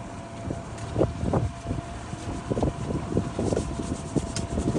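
Boat motor running steadily at trolling speed, a low rumble with a thin steady whine, while wind buffets the microphone and irregular thumps come through.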